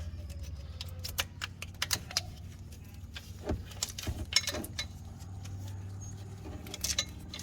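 Light, irregular clicks and rattles of hands handling the new crank position sensor and its wiring harness in the engine bay, over a low steady hum.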